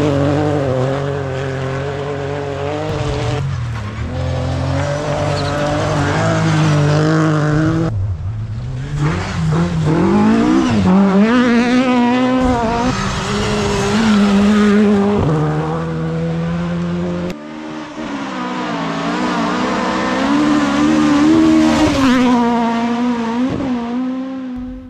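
Rally cars at full speed on a gravel stage, one after another, engines revving hard and rising and falling in pitch through gear changes. The sound cuts abruptly from one car to the next about 17 seconds in, and fades out at the very end.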